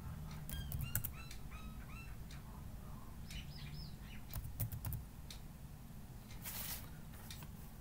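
Faint computer keyboard keystrokes, a scattering of separate clicks, with small birds chirping briefly in the background over a low room hum.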